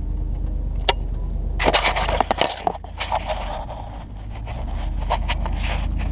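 Handling noise on an action camera in its plastic case as it is grabbed and turned: scrapes, rustles and sharp knocks, busiest from about one and a half to three and a half seconds in, over a steady low rumble.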